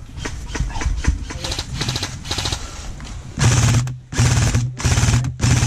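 Airsoft rifle firing full-auto in four short bursts with a steady buzz, starting about three and a half seconds in. Before them comes a rapid patter of clicks.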